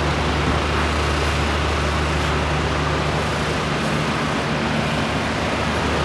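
Steady roar of a turbulent river rushing through rapids, with a low steady hum underneath.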